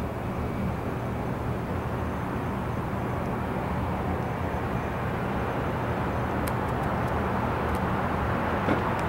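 Steady, low outdoor city rumble at night, slowly getting a little louder, with a few faint clicks in the second half.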